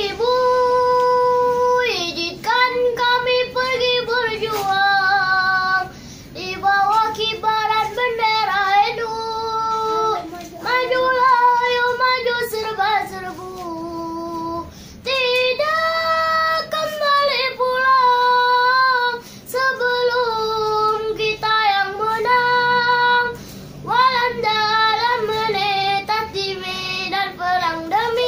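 A boy singing solo without accompaniment, in long held notes with melismatic ornaments, phrase after phrase with short breaks for breath.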